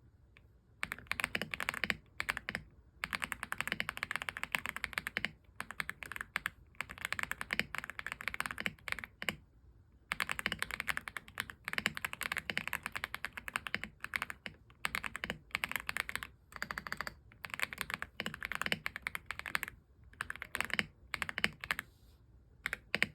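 Fast typing on an AULA F75 mechanical keyboard: rapid runs of keystroke clacks broken by brief pauses of a fraction of a second.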